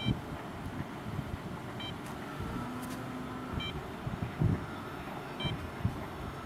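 Strong wind buffeting the microphone in uneven low gusts, with a short high electronic beep repeating about every two seconds.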